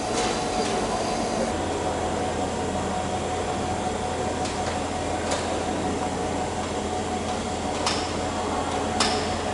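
Steady workshop machinery hum, with a deeper hum joining about a second and a half in. A few sharp clicks are heard over it, from hand-tool work on an aluminium wing rib.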